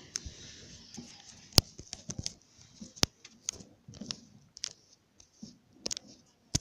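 Fireworks popping and crackling: irregular sharp cracks at uneven intervals, the loudest about a second and a half in and again about three seconds in.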